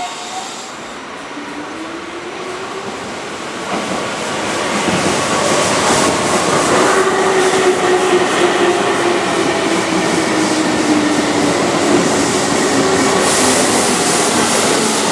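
Keihan 2200-series electric commuter train passing close at low speed, growing louder about four seconds in, its motors giving a faint whine that slowly falls in pitch over the wheels clattering on the rails.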